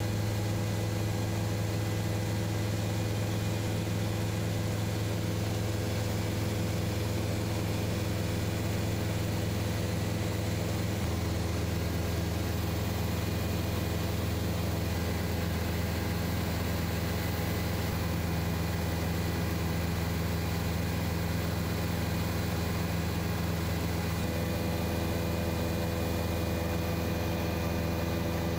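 Helicopter in flight: a steady engine and rotor drone made of several constant low tones over a rushing hiss. The low hum shifts slightly about eleven seconds in.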